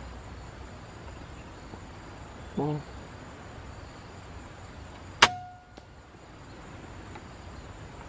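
A single air rifle shot about five seconds in: one sharp crack with a brief metallic ping ringing after it, over a steady high insect drone.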